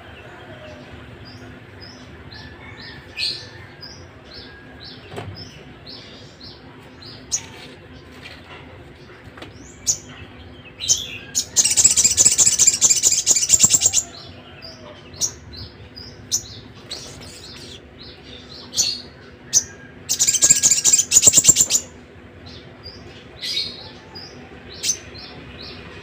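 Caged sogon songbird singing: short high chirps every second or so, broken twice by a loud, fast trill about two seconds long, around eleven and twenty seconds in.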